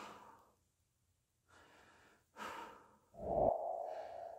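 A person's audible breathing, two short breaths a couple of seconds apart. About three seconds in, a steady mid-pitched hum-like tone starts and fades slowly.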